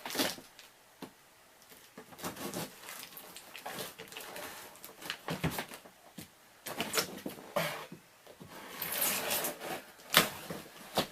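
Scooter box and its packaging being opened and handled: irregular rustling, crinkling and scraping with scattered knocks and clicks, and a longer rasping rip about nine seconds in.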